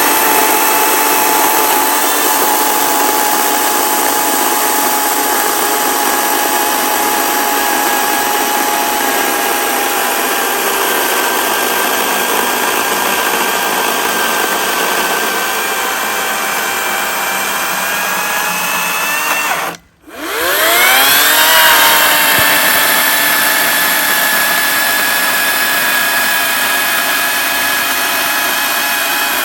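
Echo 58V battery chainsaw running through a log, its electric motor and chain making a steady high whine that sags a little in pitch under load. About twenty seconds in it stops for a moment, then spins back up with a rising whine and runs on.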